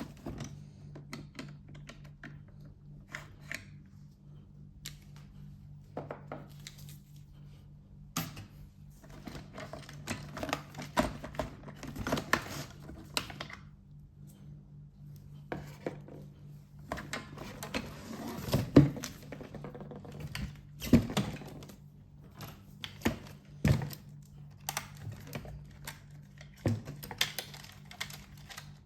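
Hand work on the plastic parts of a disassembled Roborock Qrevo 5AE robot vacuum while the damaged left wheel assembly is taken out: irregular clicks, taps and light knocks of plastic and small tools, with two louder knocks about two-thirds of the way in. A steady low hum runs underneath.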